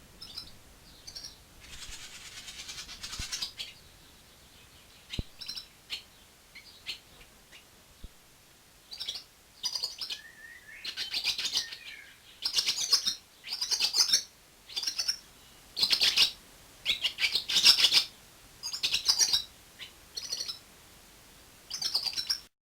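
A songbird singing: a string of short, high chirping and trilling phrases, sparse at first and coming faster and louder in the second half.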